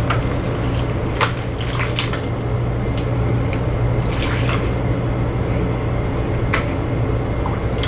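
Breast milk poured from a plastic bottle into a plastic storage bag, with a few light clicks and crinkles from the bottle and bag, over a steady low hum.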